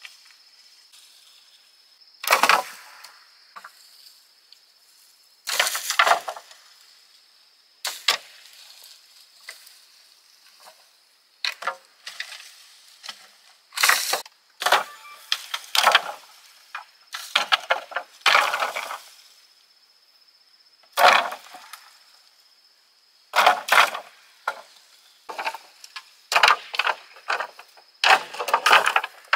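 Dry cut branches and brush crackling and snapping in irregular bursts as firewood is gathered, broken and tossed on a littered slope.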